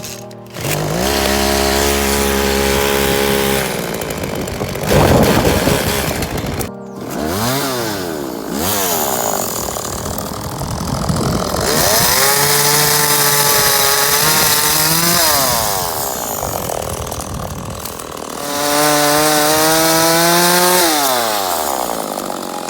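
Two-stroke chainsaw revving up to full speed and dropping back several times while cutting branches, with three long high-speed runs and quick dips in pitch between them.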